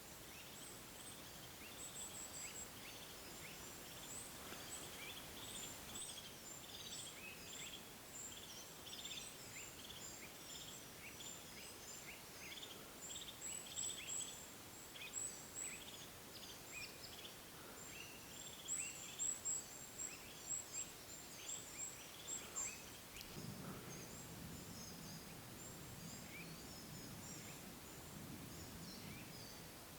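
A flock of small birds chirping and twittering quickly and continuously, in short high downward notes. A faint low rustling noise joins in the last several seconds.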